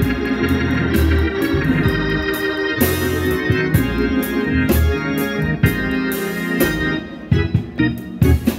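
Organ music with deep bass under it and frequent sharp percussive hits, a church band playing.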